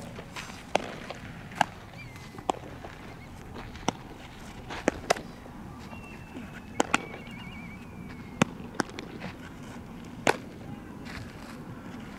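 Baseballs popping into leather gloves during a game of catch: about a dozen sharp pops at uneven intervals, some in quick pairs.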